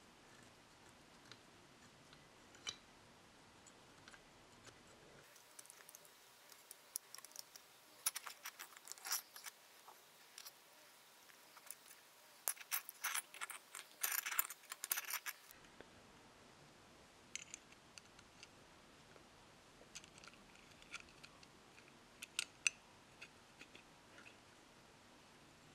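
Light metallic clicks and clinks of small metal parts being handled, with a denser flurry of them in the middle.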